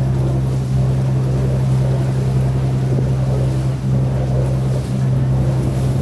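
Boat engine running steadily, a deep even drone with the rush of water and wind over it.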